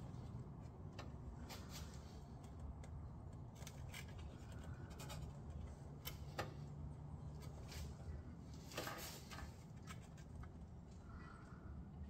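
Scattered light clicks and knocks of hand tools and bolts against metal parts as a clutch assembly is fitted, over a low steady hum.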